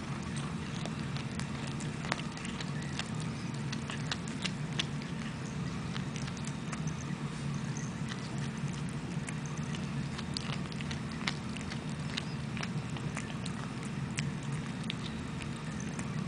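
A cat eating a mouse, its teeth crunching through it in irregular small clicks and crackles, over a steady low hum.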